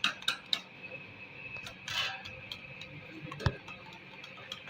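Kitchen utensils clicking lightly against a dish a few times, with one duller thump about three and a half seconds in, over a faint steady high-pitched hum.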